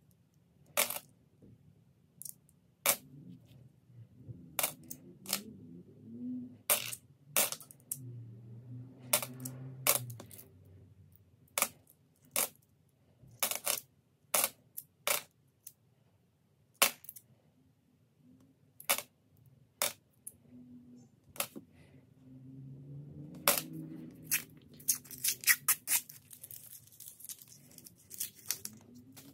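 Australian $1 coins clinking against one another as they are handled and sorted: irregular single sharp clinks a second or so apart, with soft rustling of handling in places and a quick run of clinks near the end.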